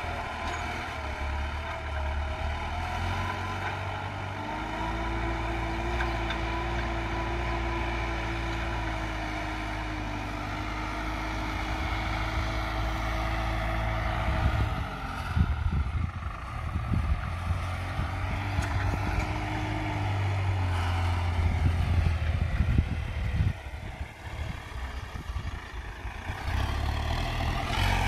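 New Holland TT4.75 tractor's diesel engine working under load while plowing, running steadily with small shifts in pitch. About halfway through, irregular low rumbling on the microphone joins in for several seconds.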